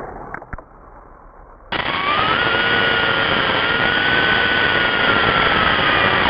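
Traxxas Slash 4x4 RC truck's brushless Velineon motor and drivetrain whining under loud road and wind rush, heard from its onboard camera. The whine rises, then slowly eases. It starts suddenly about a second and a half in, after a quieter stretch with a couple of light knocks.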